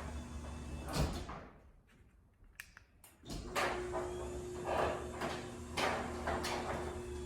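Chamberlain B970C belt-drive garage door opener and door running with a steady motor hum. About a second in it stops with a click, then after about two near-quiet seconds with a few small clicks it starts again in a slightly higher tone and runs on, with soft knocks from the moving door about once a second.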